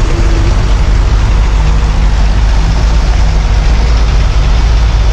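Diesel engine of a large intercity coach running steadily close by, a low, even engine sound with no change in pitch.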